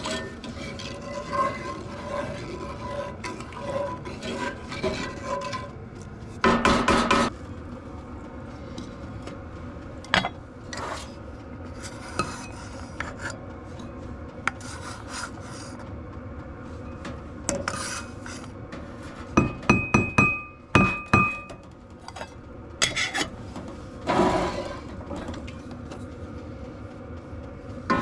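A metal spoon scraping and clinking in a cooking pot as food is stirred, in irregular strokes, with a louder scrape about seven seconds in and a quick run of sharp knocks about twenty seconds in.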